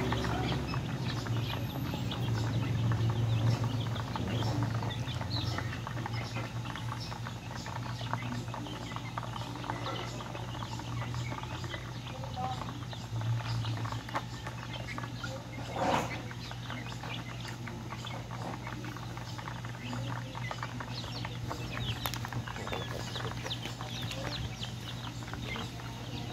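Young chickens peeping and chirping continuously, over a steady low hum, with a single knock about sixteen seconds in.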